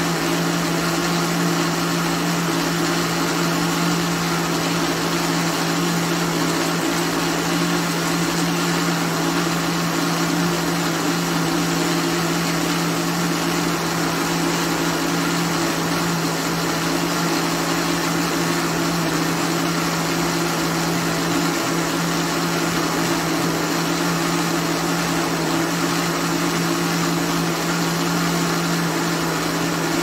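Countertop blender motor running at a steady, unchanging speed, blending a thin liquid pudim batter of eggs, condensed milk and milk.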